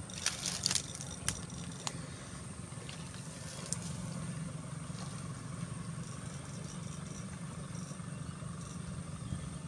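Backpack battery electrofishing rig buzzing steadily while its pole electrodes are swept through the water, with a faint constant high whine over the buzz. Several sharp clicks come in the first two seconds.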